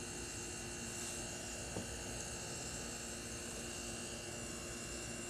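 Steady background hum with a faint constant high whine, and one soft click about two seconds in.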